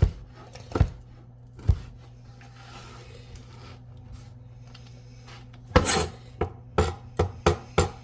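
Kitchen knife chopping bacon on a cutting board: single chops about a second apart, a pause, then a quicker run of five or six chops near the end.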